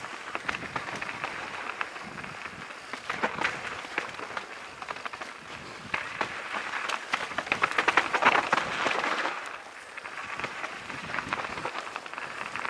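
Mountain bike rolling fast downhill on a dirt trail covered in dry leaves: crackling tyre noise on leaves and dirt mixed with the clatter of the bike over bumps, loudest a little past the middle.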